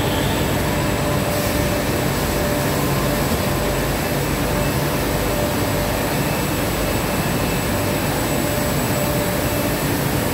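Cellophane film slitting and rewinding machines running steadily, with clear film feeding over the rollers onto rolls. It is an even mechanical noise with a few faint steady whines in it.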